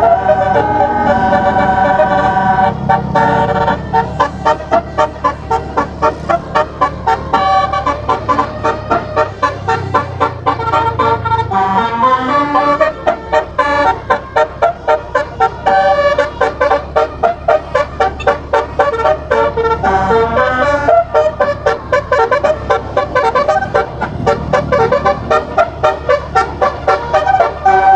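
Telolet basuri multi-trumpet air horn playing a fast melody from a MIDI file, its tuned horns sounding note after note. The notes come in quick clipped pulses, several a second, over a steady low hum.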